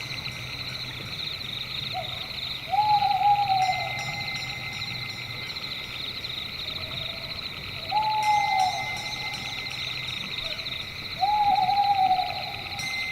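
Owl hooting three times, each hoot rising quickly and falling away over about a second, with a short softer note just before it, over a steady high chirring of a night forest.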